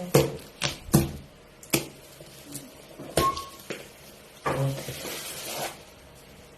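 Objects being handled in a small room: a series of sharp knocks and clinks in the first three seconds, one with a brief ring, then about a second of rasping noise.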